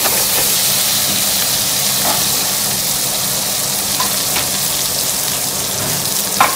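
Sea bass fillets sizzling steadily in a frying pan of foaming butter and lemon juice, with a sharp click near the end.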